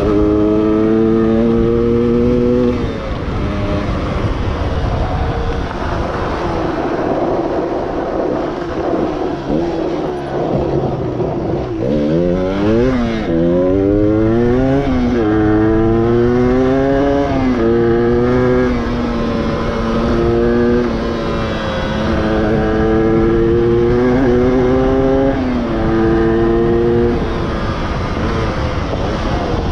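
The stock two-stroke single-cylinder engine of a 1994 Yamaha DT125R under way. Its pitch climbs again and again, dropping at each gear change. Around the middle the revs swing sharply up and down several times in quick succession.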